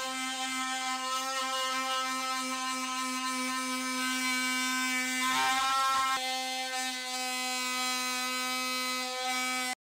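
An oscillating multi-tool runs steadily with a plunge blade cutting into a wooden floor, giving one even pitched tone. The tone wavers briefly a little after five seconds and cuts off suddenly near the end.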